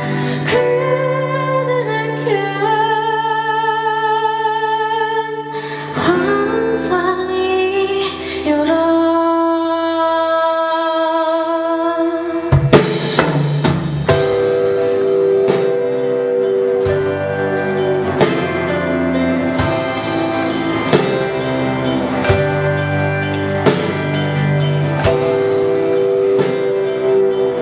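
A band playing live: a voice sings long held notes over guitar and bass, and about halfway through a loud hit brings in the full drum kit with a steady beat.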